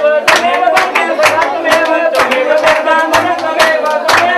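Music with a wavering sung melody over a steady beat of about two sharp strikes a second.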